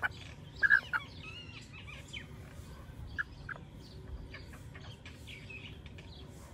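Chickens clucking in a few short calls, loudest in the first second, with fainter higher bird chirps around them.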